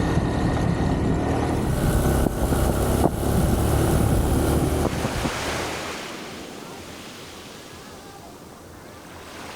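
Ride on a motor scooter, with engine and wind rumbling on the microphone and two sharp knocks, for about five seconds. This fades into a quieter, steady wash of ocean surf.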